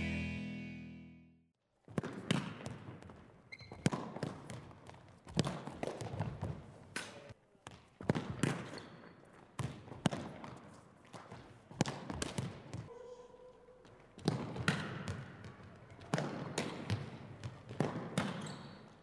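Futsal balls being kicked and bouncing on a wooden sports-hall floor: an irregular series of sharp impacts, often two close together, each echoing briefly in the large hall.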